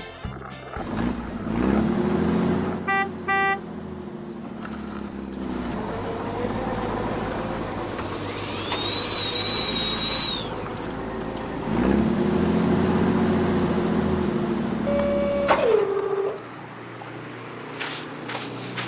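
Heavy construction-vehicle engine sound effects: the engine revs up and back down twice, with two short horn beeps about three seconds in and a high whining hiss in the middle.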